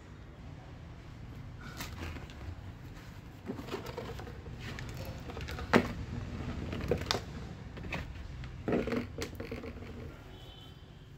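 Scattered knocks and rustles as a potted plant's root ball is handled and loose soil crumbles off it, the sharpest knock a little past halfway, over a steady low rumble.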